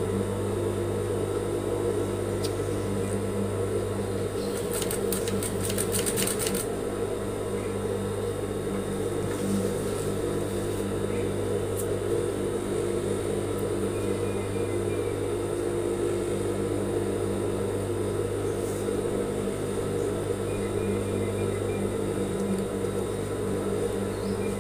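Industrial sewing machine running steadily as it stitches binding onto fabric: a constant motor hum under the rapid chatter of the needle.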